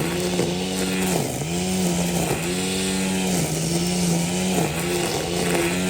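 An engine running steadily, its pitch dipping briefly about once a second.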